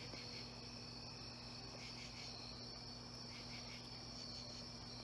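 Crickets chirping in a steady chorus, with a low steady hum underneath.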